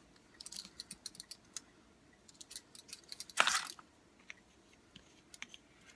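Scattered small clicks and clinks as handcuffed hands handle a foundation bottle, with one louder rush of noise about three and a half seconds in.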